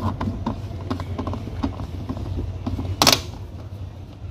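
Irregular small clicks and plastic rattles of hands working the outboard's fuel-line connector at a red portable fuel tank, with one short, sharp, louder burst about three seconds in, over a low steady hum.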